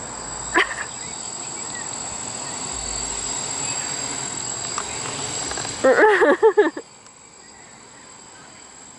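A homebuilt quadcopter's electric motors and propellers whining steadily with a high-pitched tone as it lifts off and hovers, the sound dropping away abruptly about seven seconds in. Just before that, an animal lets out a loud burst of five or six quick calls, the loudest sound here.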